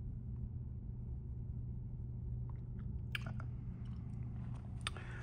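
A person chewing and biting food, with a few small clicks and crunches about three seconds in and near the end, over a steady low hum.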